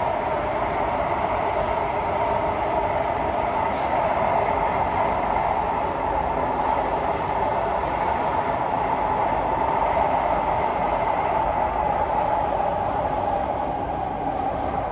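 Kawasaki–CSR Sifang C151A metro train running steadily at speed, heard from inside the car: wheel-and-rail noise with a constant mid-pitched drone.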